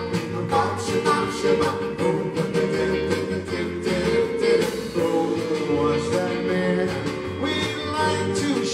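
Live doo-wop and rock-and-roll band playing, with drums, electric guitar and bass under group singing.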